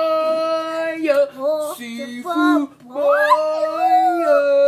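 A woman and a child singing a short chant, with long held notes, a short break, and a swooping note about three seconds in that settles into another held note.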